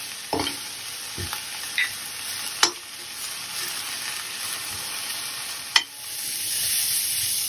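Chopped fenugreek leaves, spring onion and green chillies sizzling in oil in a stainless steel pan while a metal spoon stirs them, with a few sharp clicks of the spoon against the pan. The sizzle grows louder near the end.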